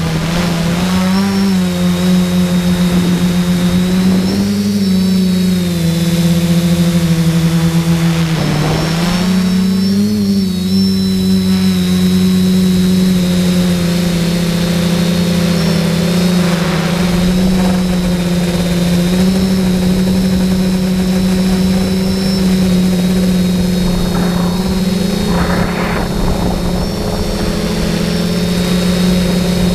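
Electric motors and propellers of an SK450 quadcopter, heard from the camera mounted on it: a steady buzzing hum whose pitch wavers up and down with the throttle, dipping briefly about eight seconds in, over a thin high whine.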